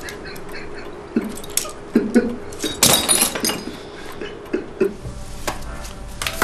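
A man crying: broken sobs and sharp gasping breaths, with a loud outburst about three seconds in. About five seconds in this gives way to a steady low hum.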